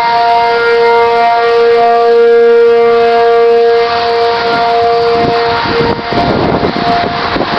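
Outdoor civil-defense warning siren sounding a steady multi-note tone that swells and then fades away about two-thirds of the way through, the warning given for a tornado. Gusts of wind buffet the microphone near the end.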